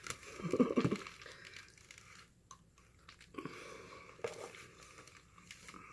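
Soft, sticky squelching of cheesy mac and cheese being worked with a spoon, with a few light clicks; the loudest bit comes about half a second in.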